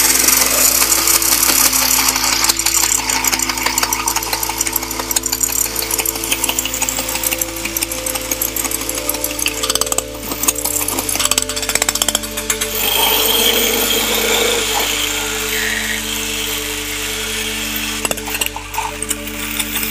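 Battery-operated toy robot's motor and plastic gear train running with a loud, fast clattering rattle that starts suddenly, over background music. Something else in the drive is failing: the owner finds a loose part and the mechanism not turning properly.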